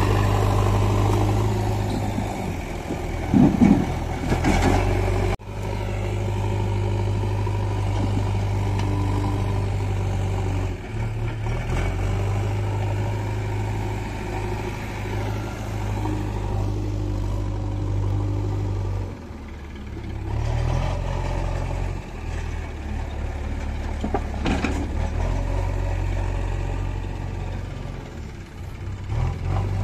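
Diesel engines of a JCB backhoe loader and a Massey Ferguson 1035 tractor running with a steady deep drone. There is a louder surge about three to four seconds in. The drone breaks off and resumes abruptly a few times.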